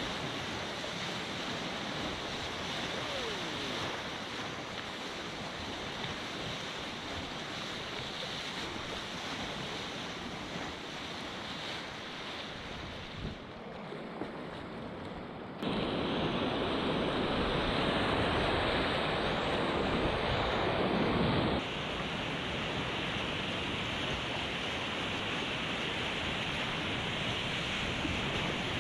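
Rushing whitewater of a river rapid heard from a kayak, a steady roar of water with spray splashing at the bow. About halfway through it jumps louder for some six seconds, then drops back suddenly.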